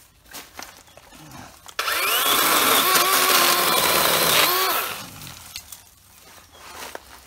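Dewalt DCM565 18-volt cordless chainsaw cutting through a green branch. It starts suddenly about two seconds in and cuts loudly for about three seconds, then winds down as it is released.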